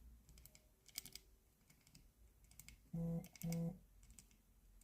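Buttons on a digital combination lock's keypad pressed one after another, a scatter of faint clicks, as each is tried for resistance. About three seconds in come two short, steady low tones, half a second apart.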